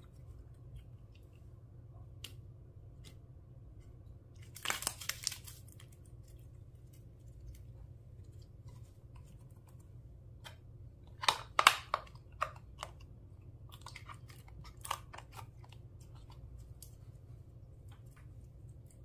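Clear slime and makeup being worked by hand: scattered small clicks and pops, with a short crackling burst about a quarter of the way in, a louder cluster of crackles just past the middle and a few more soon after, over a faint low hum.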